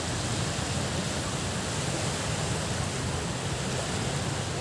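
Steady, even rushing of beach ambience, wind and sea water, with no distinct events.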